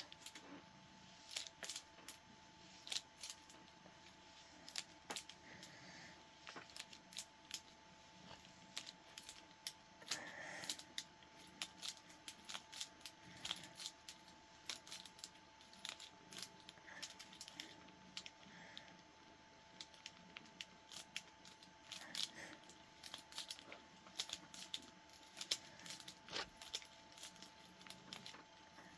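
Faint, irregular clicks and soft rustling from a hand stroking a cat's fur, the hand wearing a metal mechanical brace, over a faint steady hum.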